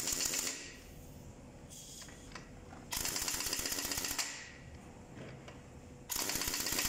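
Pneumatic impact wrench rapidly hammering the wheel nuts tight on a refitted truck wheel, in three bursts: one ending about half a second in, one of just over a second about three seconds in, and one starting near the end.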